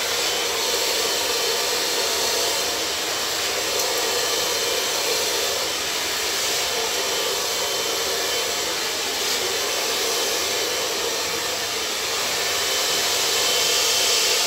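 Hand-held hair dryer running steadily, blowing air through long hair as it is blow-dried.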